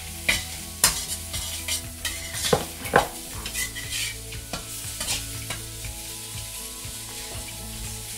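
Metal spatula scraping and clicking against a round-bottom wok as onions and peas are stirred, over a steady sizzle of vegetables frying in oil. The clicks come quickly in the first few seconds, with the loudest strikes about three seconds in, then thin out.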